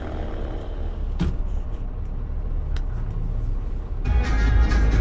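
Steady low engine and road rumble inside the cab of a Scania V8 lorry moving in slow motorway traffic, with a single click about a second in. Music comes in about four seconds in.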